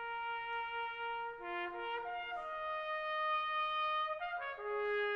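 Slow brass music: long held trumpet-like notes that change pitch a few times, some overlapping, settling onto a long lower note near the end.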